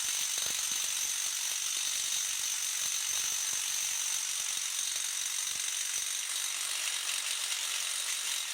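Electric impact wrench hammering steadily at full speed on a stuck front-hub fastener; the tool is single-speed, either on or off.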